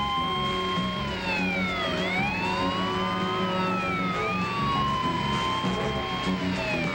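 Several police car sirens wailing at once, their pitches rising and falling slowly and out of step with each other.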